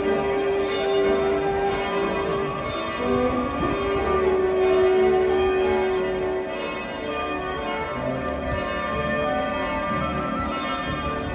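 Church bells pealing: several bells struck over and over, their long rings overlapping.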